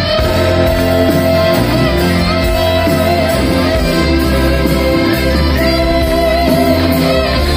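Live band music with guitar carrying a held, wavering melody line over a steady bass, heard loud from the concert PA.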